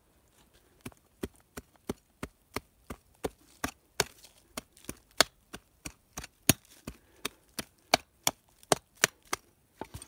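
A hand tool chopping into soil and roots on the forest floor: sharp, regular strikes about three a second, starting about a second in.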